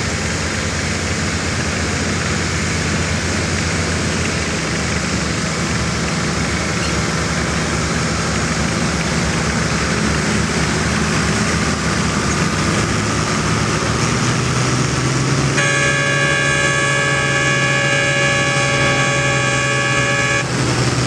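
Farm tractor engine running steadily under load while pulling a weight-transfer sled. About three-quarters of the way through, a horn sounds one steady note for about five seconds.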